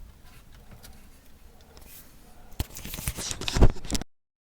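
Low quiet for a couple of seconds, then a quick flurry of clicks and knocks with one heavier thump near the end, after which the sound cuts off abruptly.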